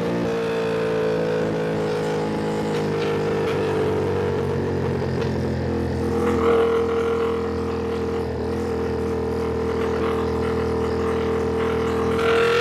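Ducati Panigale V2's V-twin engine running under way, holding a fairly steady pitch that sags slightly in the middle and climbs again near the end.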